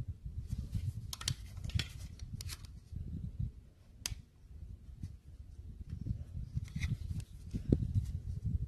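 Gloved hands and a small tool working piston rings into a two-stroke trimmer cylinder: scattered light clicks and scrapes of metal on metal over a low handling rumble, with one sharper click about four seconds in.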